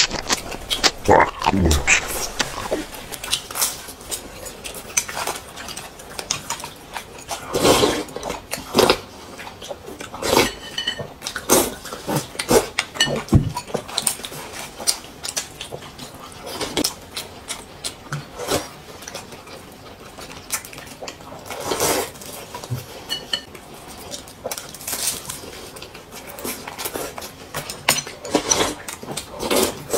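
Eating sounds: chopsticks clicking against bowls and plates at irregular intervals, mixed with chewing and slurping of soup.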